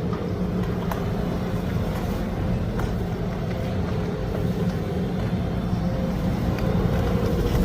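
Road sweeper truck running steadily: a low engine hum with a steady higher whine over an even rushing noise.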